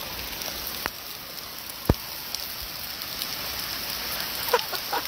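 Steady hiss of falling rain, with two brief knocks in the first two seconds. Near the end a husky gives a few short yips.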